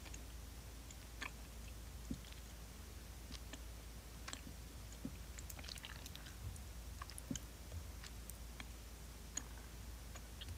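Faint scattered mouth and lip clicks close to a phone microphone, like quiet chewing, over a steady low hum.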